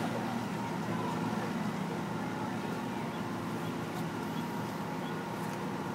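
Steady low hum of an idling engine over city street noise.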